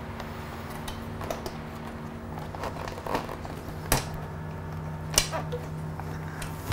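Hand tools working the gas tank cover bolts: scattered small clicks, with two sharp clicks about four and five seconds in, over a steady low hum.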